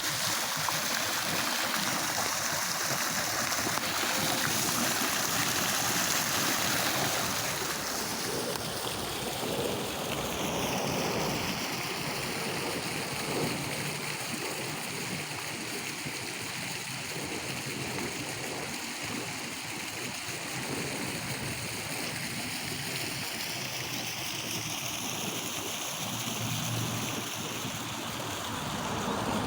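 Waterfall: a steady rush of falling and splashing water, a little louder for the first eight seconds or so.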